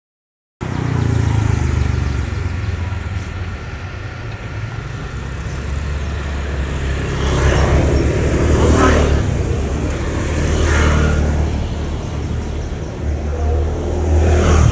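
Street traffic: a steady low rumble with vehicles passing, swelling up and fading away three times. It starts suddenly about half a second in.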